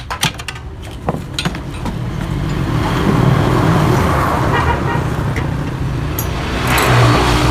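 A motor vehicle engine running, growing louder about two to three seconds in and holding there. A few sharp metallic clinks come in the first second or so.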